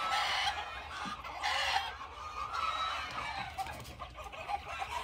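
A flock of domestic chickens clucking and calling in their pens, many birds overlapping.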